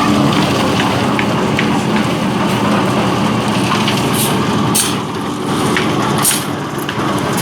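Concrete mixer running: a steady engine hum with the churning rattle of concrete tumbling in the drum, and a few short scraping hisses in the second half.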